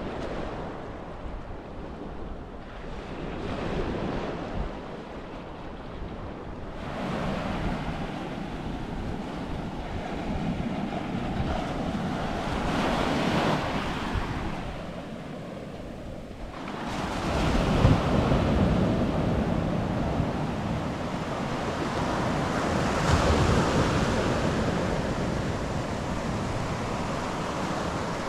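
Sea waves breaking and washing up a beach, swelling and easing, with the biggest surge about two-thirds of the way through. Wind rumbles on the microphone throughout.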